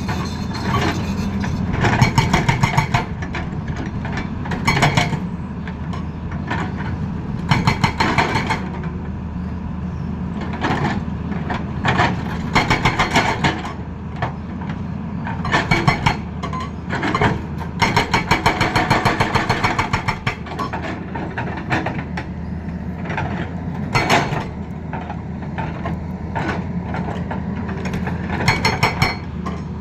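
Excavator's diesel engine running steadily, with repeated bursts, each about a second long, of rapid hammering from a hydraulic breaker.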